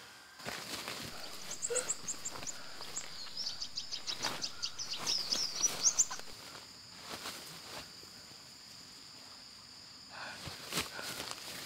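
Forest ambience: footsteps and rustling in leafy undergrowth, under a steady high insect drone. For a few seconds in the first half a bird gives a rapid run of high-pitched chirps.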